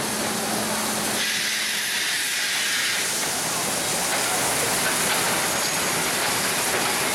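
Steam locomotive rolling slowly past, with a steady loud hiss of escaping steam. The hiss turns sharper and higher for a couple of seconds, starting about a second in.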